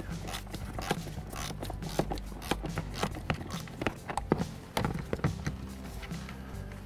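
Hand ratchet on an extension clicking in short, irregular runs, with small knocks of the tool, as it works an 8 mm bolt loose.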